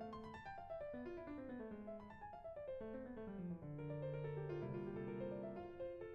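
Background piano music: gentle descending runs of notes settling onto held chords.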